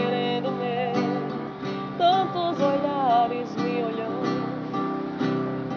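Acoustic guitar strummed in a steady rhythm while a woman sings a slow romantic song over it.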